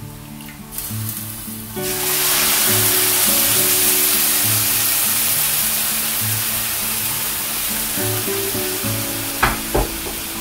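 Water poured into a hot pan of sautéed onions, lentils and bulgur wheat, sizzling with a loud steady hiss that starts suddenly about two seconds in. Two sharp knocks near the end, over background music.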